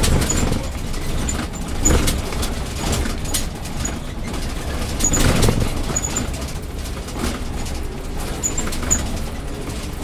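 City bus driving, heard from inside the cab: a steady low rumble of engine and road, with occasional knocks and rattles from the bus body, the strongest about two and five seconds in.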